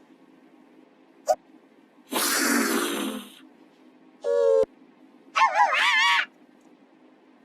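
A string of short animal sound imitations, pitch-shifted and distorted as in a G Major edit: a brief chirp, a hissing sound lasting about a second, then a short steady call and a wavering call near the end.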